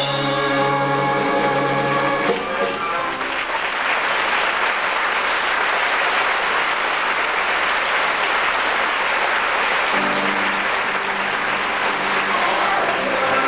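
Stage music ends on a long held chord about three seconds in, and audience applause fills the hall. About ten seconds in the music starts up again under the continuing clapping.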